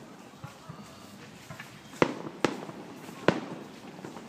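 Fireworks display: three loud bangs of shells bursting, the first about two seconds in and the others within about a second and a half, with a few smaller pops before them.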